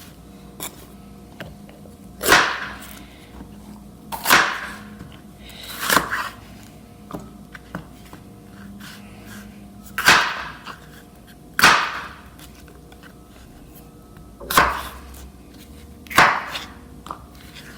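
Knife chopping capsicum on a cutting board: seven sharp cuts at irregular intervals, each blade striking the board.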